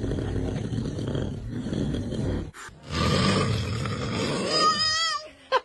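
A man snoring loudly: two long, rough, rattling snores with a short break between them. Near the end of the second snore a brief high, wavering voice sounds over it.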